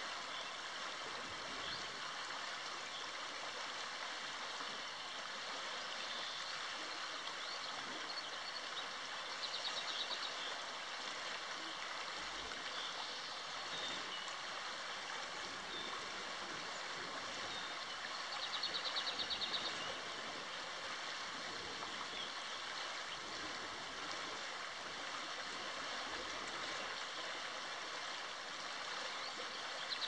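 A small river flows steadily over a shallow riffle with a constant rushing sound. A bird's short, high trill comes through about ten seconds in and again just before twenty seconds.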